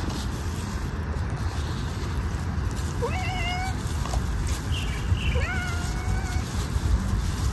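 A cat meowing twice: a short meow about three seconds in, then a longer one about five seconds in. Each rises at the start and then holds level.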